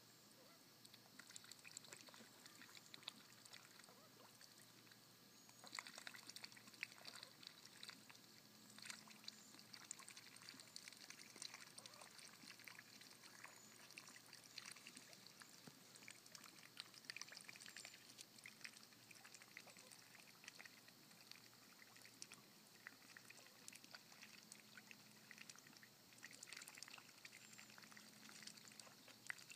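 Faint splashing and trickling of ducks dabbling on pond water: many small, irregular splashes and drips as they dip their bills and heads.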